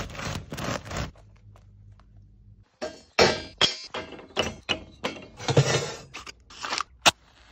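A serrated bread knife saws through the crisp crust of a sourdough loaf for about a second, the crust crackling. After a short pause come the clatter and knock of dry wooden kindling sticks stacked on a perforated metal fire tray, ending in a sharp knock.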